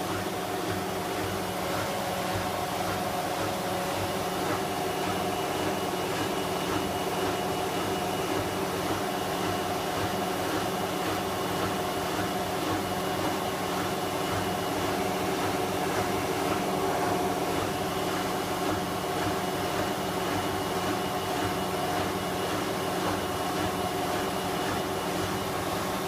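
Hoover WDYN 11746 PG8 washer-dryer spinning its empty drum on the 1400 rpm spin cycle, driven by its inverter motor, heard with the top panel removed. It makes a steady hum and whine with several held tones and an even rush that stays level throughout.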